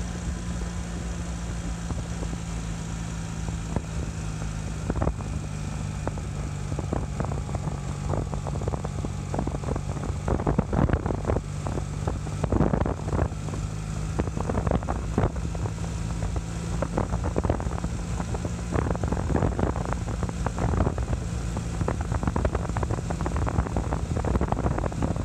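1981 Honda CM400C's air-cooled parallel-twin engine running at a steady cruise, its pitch holding even. Wind rushes over the microphone, with frequent sharp gusts of buffeting from about five seconds in.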